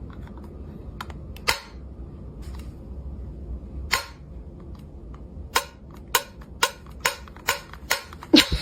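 A series of sharp clicks or taps, a few at first, then coming faster, about two a second, in the second half.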